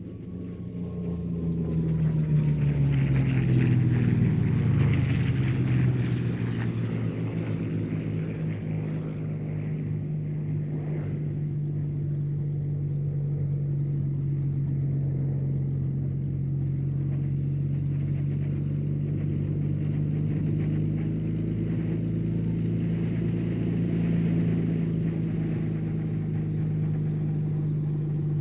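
Rolls-Royce Merlin V12 piston fighter engines: an aircraft passes low, loudest about four to six seconds in, its engine pitch falling as it goes by, then a steady, even engine drone.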